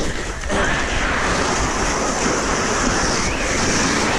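Steady rushing wind across the microphone, getting louder about half a second in and continuing at an even level.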